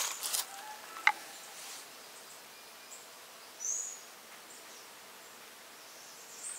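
Quiet forest ambience with a sharp click about a second in as the plastic blender cup and spoon are handled. A short high bird chirp comes a little past the middle.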